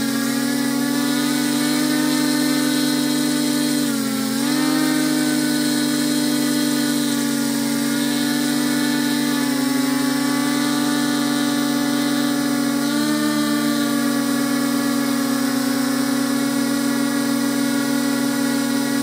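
Multirotor drone's electric motors and propellers whining steadily, heard from the drone's own camera, over a constant hiss. The pitch dips briefly about four seconds in and again about two-thirds of the way through as the motor speed changes.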